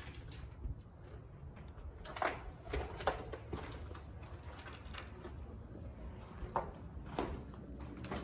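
A few scattered knocks and scuffs over a steady low rumble: a cluster about two to three seconds in, then two more near the end.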